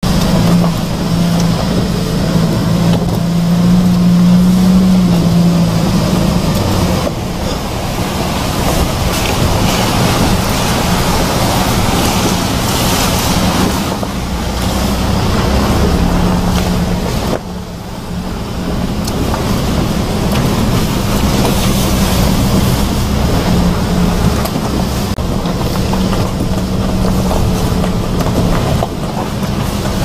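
Hyundai Porter II 4WD truck driving along a gravel track, its engine running with a steady low drone over the crunch and rumble of tyres on loose gravel, heard from inside the cab.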